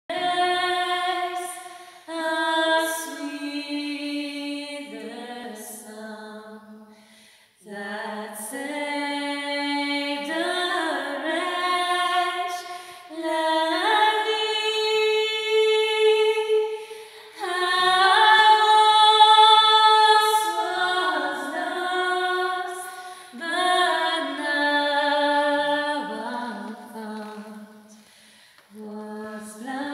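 Women singing a cappella, unaccompanied voices in sustained phrases with a few long held notes and brief pauses between phrases.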